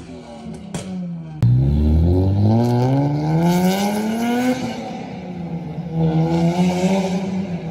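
Infiniti G37's 3.7-litre V6 (VQ37VHR) running through an aftermarket exhaust under hard acceleration. After a quieter second or so it comes in loud, climbing in pitch for about three seconds, then drops and holds a steadier note before rising again near the end.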